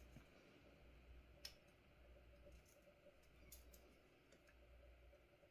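Near silence: faint room hum with a few small, sharp clicks, a single one about a second and a half in and a short cluster a little past the middle.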